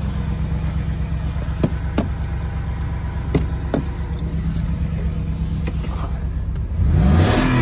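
Ford F-150 engine idling through a Flowmaster 70 Series muffler with a reused resonator and side-exit pipe: a steady, meatier low rumble with a few light clicks over it. Near the end the engine is revved and its pitch climbs.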